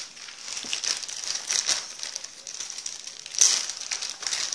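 Packaging crinkling and rustling in quick irregular crackles as a toy is unpacked by hand, with one louder crackle a little past the middle.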